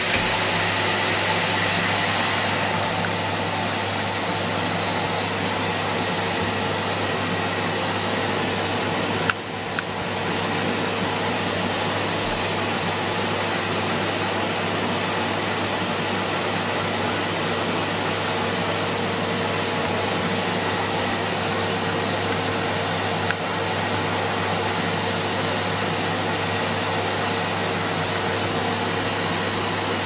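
Hetty HET 160 bagged cylinder vacuum cleaner running steadily: a constant motor-and-airflow noise with a high whine and a low hum. The sound dips briefly with a click about nine seconds in.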